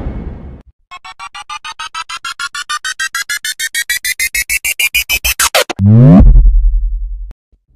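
Synthesized electronic sound effect: a quick string of beeps, about eight a second, climbing steadily in pitch. It ends in a fast downward sweep and a loud low buzz that cuts off near the end. The end of a noisy boom fades out just before it.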